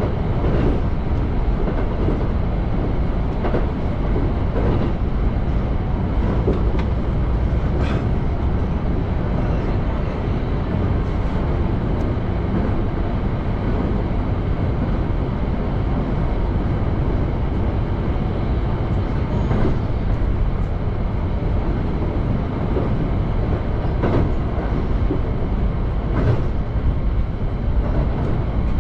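Keihan electric train running at speed, heard from inside the driver's cab: a steady rumble of wheels on rail with scattered sharp clicks over the rail joints and points.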